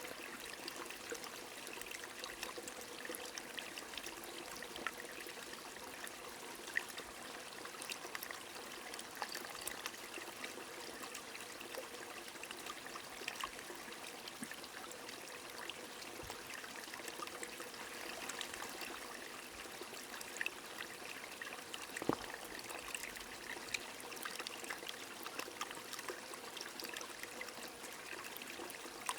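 Steady rain falling with a running stream, an even wash of water sound sprinkled with many small drop ticks. One sharper tick stands out about three quarters of the way through.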